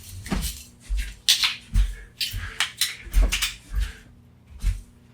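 Irregular clicks, knocks and short scrapes of hand tools working on a plastic USB plug or wall adapter being pried and broken apart.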